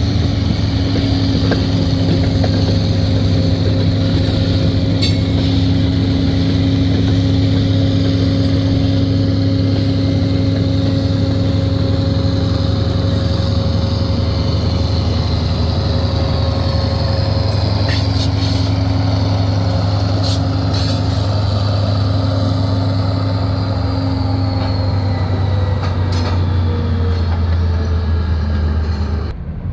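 Slow freight train of tank cars rolling over a road crossing, with a steady low diesel engine drone and a few sharp clanks from the cars. Near the end the diesel locomotive passes and its engine tone falls in pitch.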